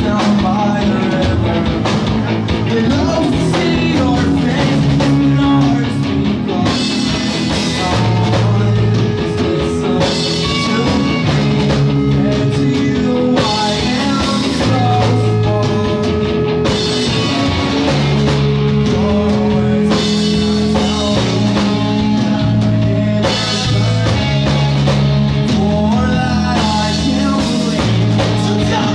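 Live rock band playing: electric guitars, bass and a full drum kit with cymbals, with a man singing into the microphone.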